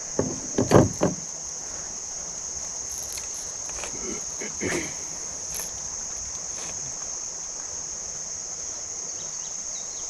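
Steady high-pitched drone of a summer insect chorus, with a brief splash of water about a second in.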